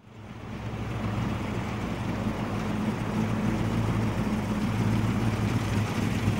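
Steady low mechanical drone, like an engine or motor running, fading in over the first second and then holding steady.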